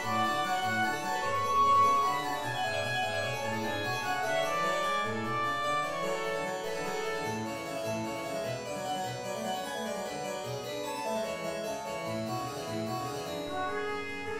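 A harpsichord plays a busy run of plucked notes, with a trumpet holding longer notes above it, loudest about two seconds in.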